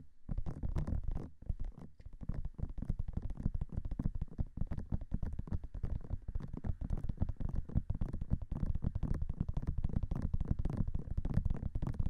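Fingertips tapping fast on the silicone ears of a binaural dummy-ear microphone: a dense, rapid run of low, muffled taps, a little sparser in the first couple of seconds.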